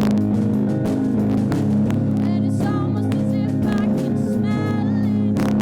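A live band playing a song: guitar-led music, with a singer's voice holding notes in the second half.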